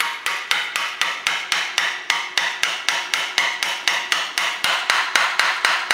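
Brass hammer tapping steadily and quickly on metal, about five blows a second, each with a short metallic ring, driving a tight-fitting homemade shaft bushing into place.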